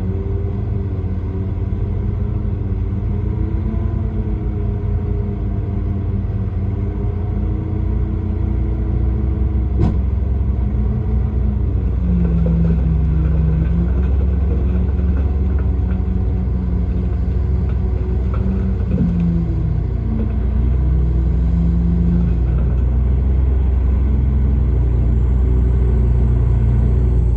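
Heavy earthmoving machine's diesel engine running under changing load, its pitch rising and falling over several seconds with a deep rumble, and one sharp click about ten seconds in.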